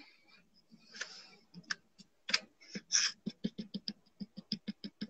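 Fingers tapping on a phone's touchscreen close to its microphone: a quick run of light clicks, about five or six a second, starting about a second and a half in.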